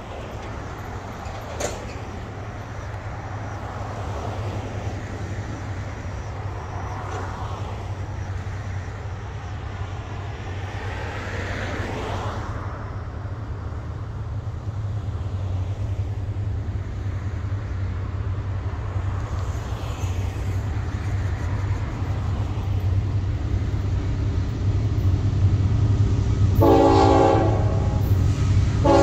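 Approaching diesel locomotive: a low engine rumble that grows steadily louder, then two blasts of its horn near the end, about two seconds apart.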